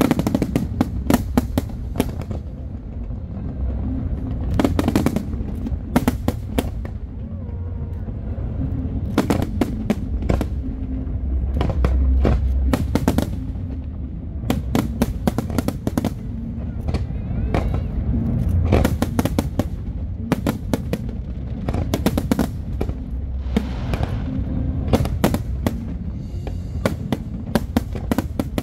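Aerial fireworks display: shell after shell bursting in rapid volleys of sharp bangs and crackles, over a continuous low rumble.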